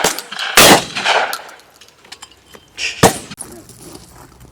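Over-and-under shotgun firing once about half a second in, the second barrel of a simultaneous pair at skeet, its report echoing for about a second. A shorter, quieter sharp crack follows about three seconds in.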